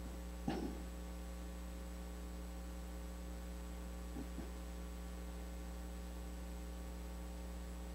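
Steady electrical mains hum, with a short, soft handling sound about half a second in and two fainter ones around four seconds in as the altar cloth covering the bread and wine is lifted and folded.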